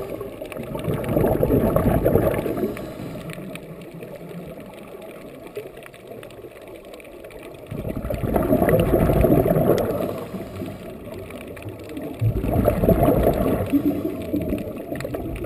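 Scuba diver's exhaled bubbles from the regulator, heard underwater: three bursts of rumbling, gurgling bubbles of two to three seconds each, with quieter gaps between breaths.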